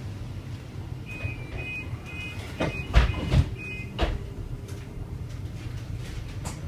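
Inside a BYD Enviro400EV electric double-decker bus: a steady low rumble, with a run of about six short high beeps, two a second, from the doors' closing warning, and a few heavy thuds in the middle.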